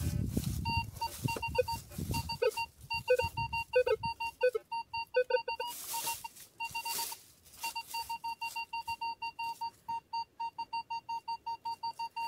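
Minelab Vanquish metal detector beeping as the coil sweeps. For the first few seconds high tones mix with a few lower-pitched tones, and low rustling fills the first two seconds. From a little past halfway, even high-pitched beeps come about three or four a second: a repeating high-tone signal of a non-ferrous target, which turns out to be a small coin.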